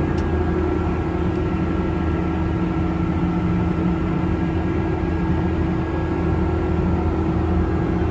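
Case IH Quadtrac 620 tracked tractor's diesel engine running steadily under load while pulling a seed drill, heard from inside the cab as an even drone with a fainter steady whine above it.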